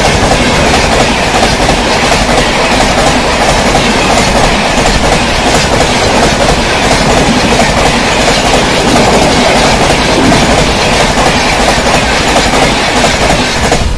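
Rajdhani Express coaches passing close by at full speed: a loud, steady rushing noise with the rapid clickety-clack of wheels on the rails.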